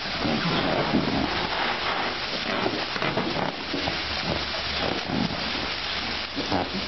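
Water splashing and sloshing in a shallow inflatable paddling pool as two baby elephants roll and kick in it, over the hiss of a hose spraying into the water.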